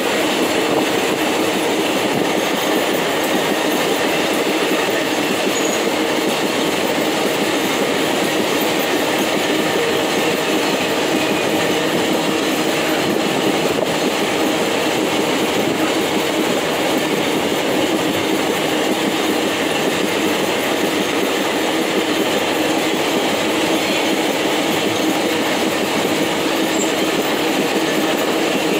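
Empty steel ore gondola wagons of a freight train rolling past at steady speed: continuous rumble and rattle of steel wheels on the rails.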